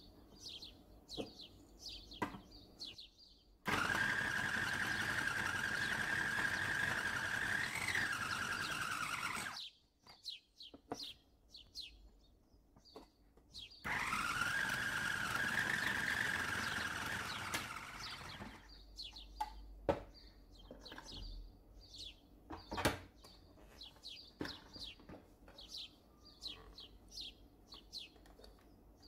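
Kenwood food processor motor running twice for about five seconds each, with a steady high hum, as a block of cheese is fed through the grating disc. Between and after the two runs a small bird chirps repeatedly, with a couple of sharp clicks near the end.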